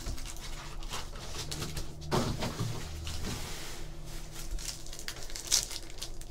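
Foil Topps Chrome baseball card packs rustling and crinkling as they are handled and laid on a table, with a sharp crinkle as a pack is torn open about five and a half seconds in. A brief low sound about two seconds in.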